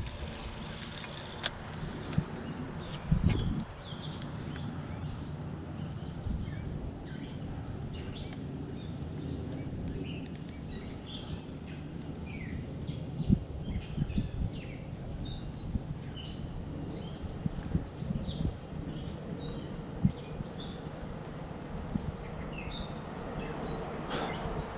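Birds chirping and calling over and over above a steady low hum, with a few dull knocks.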